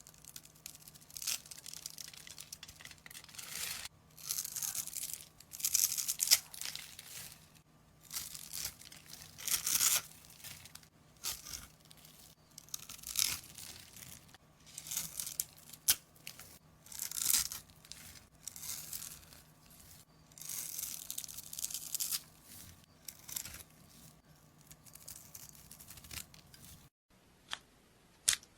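Crisp tearing and crackling as a material is pulled apart and squeezed by hand, in irregular bursts every second or two, stopping shortly before the end.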